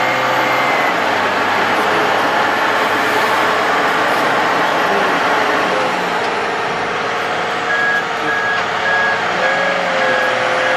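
Heavy Case IH Quadtrac tractor running hard while pulling a disc harrow through mud, with engine and track noise. Its engine note shifts slightly partway through. From about eight seconds in, an electronic warning alarm beeps steadily, about two times a second.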